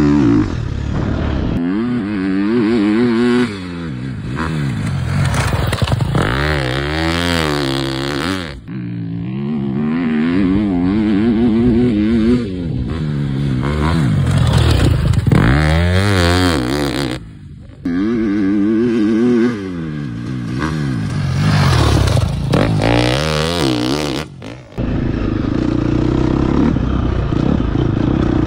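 Dirt bike engine revving hard as it rides past, its pitch climbing and dropping again and again. The sound comes in several short takes that cut off abruptly.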